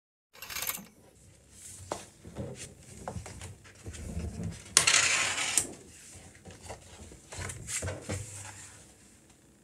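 Stiff sheets of Bristol drawing paper from a glue-bound pad being handled on a table: taps and light knocks, with a loud rustle of the sheet about five seconds in and quieter rustling near the end.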